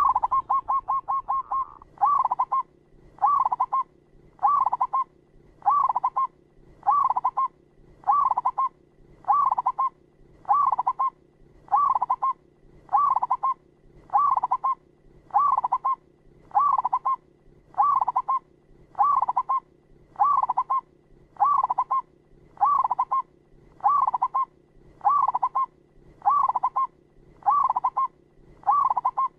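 Zebra dove (perkutut) singing: a quick run of short coo notes, then the same short rolling coo phrase repeated evenly about once a second.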